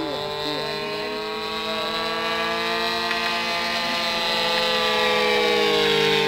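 31cc Ryobi gas engine turning a 16x8 three-blade prop on a giant-scale R/C plane, running steadily at flying throttle. Its pitch rises gently and then falls as the plane passes, and it grows louder toward the end.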